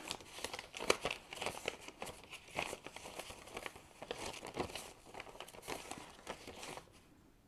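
Paper banknotes (US dollar bills) rustling and crinkling as a handful of them is shuffled and sorted by hand, in a run of short, crisp rustles that stop briefly just before the end.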